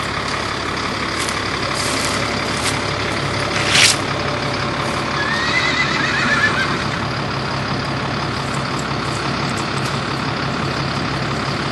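Semi truck's diesel engine idling steadily, with a short loud hiss about four seconds in. A horse whinnies for about a second and a half around the middle.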